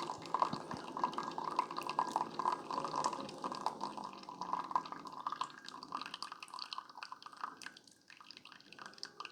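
Keurig K-Supreme Plus pod coffee maker dispensing hot coffee into a cup: a stream splashing and dripping, thinning out and growing quieter over the last few seconds.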